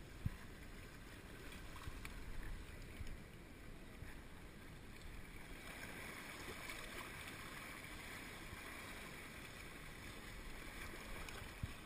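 Small waves washing and sloshing against rocks at the water's edge, with a low wind rumble on the microphone. A sharp knock comes just after the start and another near the end.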